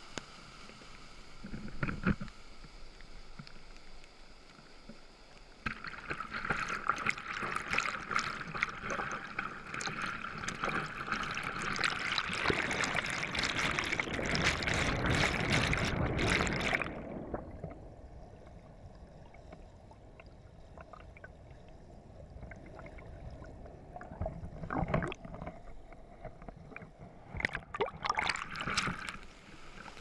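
White water of a creek waterfall cascade rushing and splashing right against a camera in a waterproof housing. The rush grows louder about five seconds in, turns dull and quieter at about seventeen seconds as water covers the camera, and a few sharp splashes hit the housing near the end.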